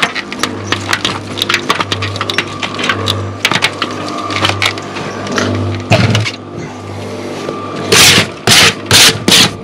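Shovel and trowel scraping and clattering in sand-and-cement mortar as mortar boards are loaded, with many sharp clicks throughout and a run of louder gritty scrapes near the end.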